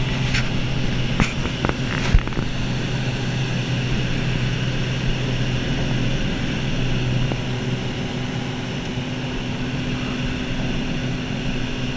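Single-engine propeller plane in cruise, its engine and propeller droning steadily as heard inside the cabin. A few sharp clicks in the first two seconds.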